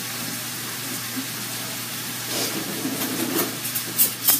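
Food sizzling in a frying pan on a gas stove, a steady hiss. A few light knocks and clatters of kitchenware in the second half.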